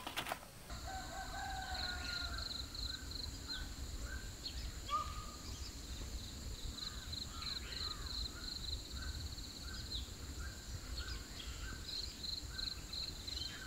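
Rural outdoor ambience: a distant rooster crows about a second in, while small birds chirp repeatedly over a steady high-pitched hum.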